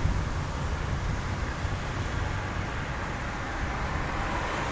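Steady traffic noise from cars on a rain-wet avenue: tyres hissing on wet pavement over a low engine rumble, swelling slightly near the end.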